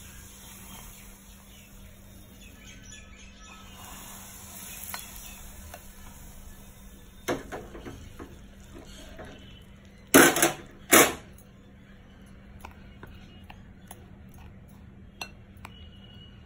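A steel spoon stirring rice flour in a glass mixing bowl, scraping and clinking against the glass, with two loud knocks of spoon on bowl about a second apart just past the middle.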